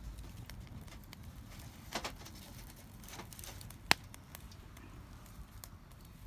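Wood campfire crackling, with scattered small pops and one sharp pop about four seconds in.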